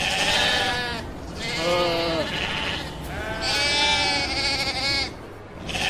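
Sheep bleating: three wavering calls, the middle one lower in pitch and the third the longest at about a second and a half, with a fourth starting near the end.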